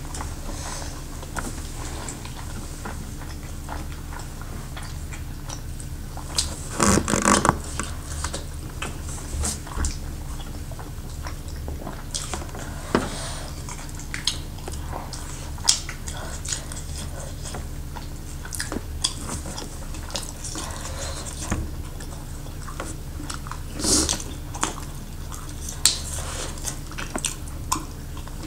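Person eating, chewing and biting into food, with many small mouth clicks and a few louder bites, about a quarter of the way in and twice near the end.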